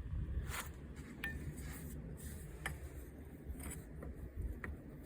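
Scattered light metallic clinks and scrapes, single sharp ticks a second or so apart, as a hydraulic line and its fitting are handled and threaded back on.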